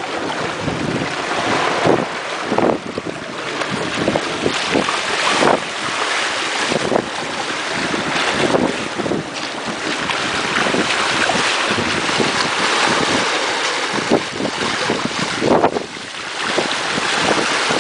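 Water rushing and splashing along the hull of a sailboat under way at speed, with a bare foot trailed in the water throwing up spray, and wind buffeting the microphone. The rush is steady, broken by many irregular splashes.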